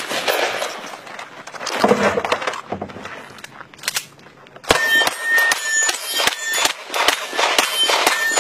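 Rapid pistol fire at steel targets, about three shots a second from about halfway through, many shots followed by a short bright ding as a steel plate rings from the hit. In the first few seconds there are a few scattered shots among handling noise.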